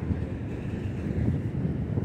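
R143 subway train running as it pulls out of the station, a steady low rumble.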